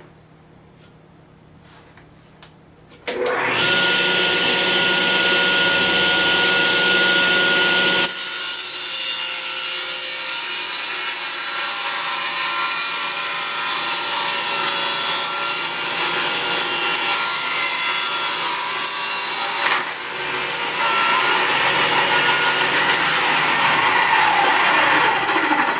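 Benchtop table saw starting up and running free with a steady whine for about five seconds, then cutting through a thick wood block with the blade raised high to free two plugs. The cut is a loud, rough sawing noise with a brief dip about twenty seconds in, and the saw shuts off at the end.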